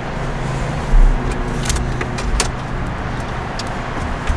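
Loosened plastic dashboard trim bezel and wiring connectors being handled behind it: a low thump about a second in, then several sharp plastic clicks and rattles, over a steady low rumble.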